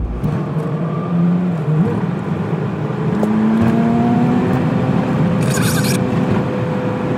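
Four-wheel drive's engine running on the road, heard from inside the cab, its pitch rising slowly as the vehicle gathers speed. A short burst of hiss comes about five and a half seconds in.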